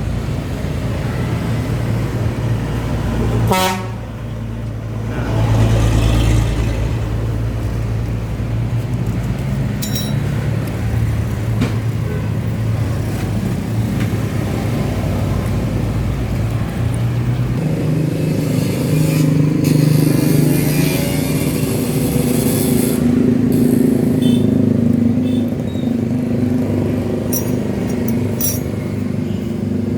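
A motor vehicle engine running steadily, with a single knock about three and a half seconds in and a higher steady tone joining from about eighteen seconds.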